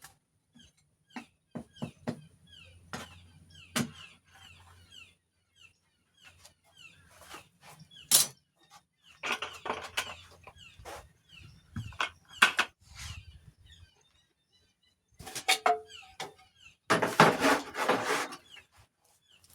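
Irregular knocks and clatter of tongs and the red-hot paddle bit being handled at a forge, with a longer scraping rush near the end. A bird chirps repeatedly in the background.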